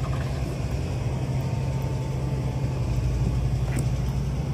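Chevrolet Silverado's 3.0 L Duramax inline-six turbodiesel idling, a steady low even hum that is very quiet for a diesel.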